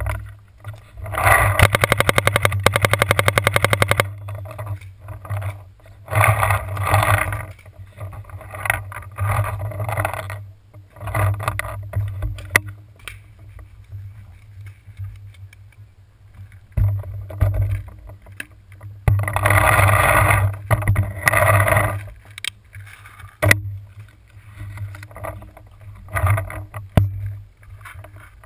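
Footsteps crunching and rustling through dry leaves and twigs, over a low rumble of handling noise on a gun-mounted camera. About a second in, a fast even rattle runs for about three seconds, and a few sharp knocks come near the end.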